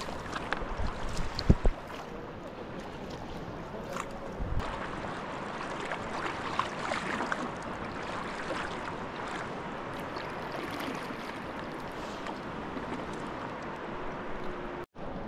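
Sea kayak moving over calm sea: paddle blades splashing and dripping, and water lapping and trickling along the hull. There are a few low thumps in the first two seconds, the loudest about a second and a half in.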